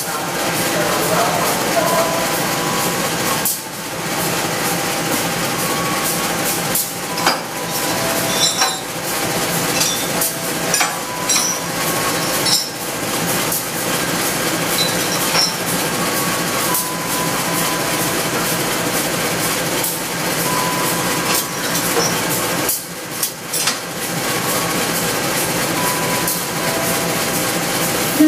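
Steady running noise of an idling diesel locomotive standing at the platform, with scattered metallic clinks and knocks as a shunting worker handles the coupling between the locomotive and a passenger car.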